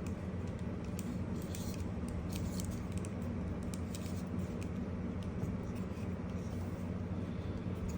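Light clicks and scrapes of an action figure and its packaging being handled, scattered through the first half and sparser later, over a steady low hum.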